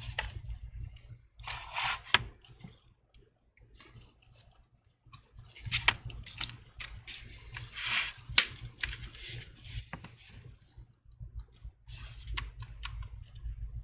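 Scattered clicks and brief rustles from hands handling the laptop and its charger cable.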